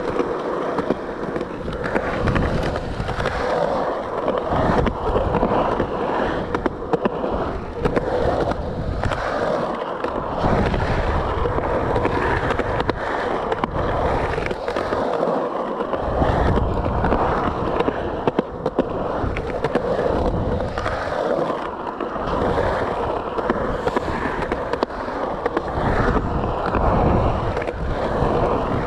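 Skateboard wheels rolling through a concrete skate bowl: a continuous rolling roar with a steady tone running through it, swelling and fading as the rider carves up and down the walls, with occasional sharp clacks from the board.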